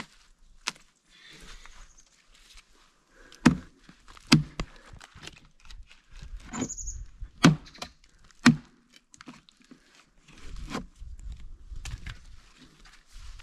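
A curved knife chopping into the dry wood and bark of an old tree trunk: irregular sharp chops, four of them loud through the middle, with lighter knocks and bark cracking between. A short high squeak comes about seven seconds in.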